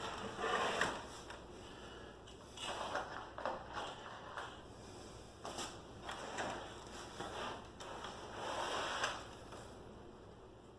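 Intermittent scraping, rubbing and knocking handling sounds, in four or five short bursts a couple of seconds apart with a few sharp clicks.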